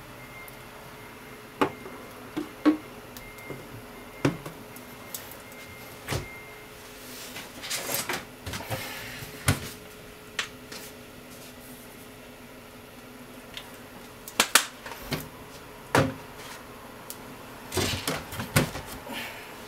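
Scattered light clicks and knocks of kitchen handling around a frying pan on a gas stove, over a steady low hum. Near the end comes a short run of noisier sound as cooking oil goes into the pan.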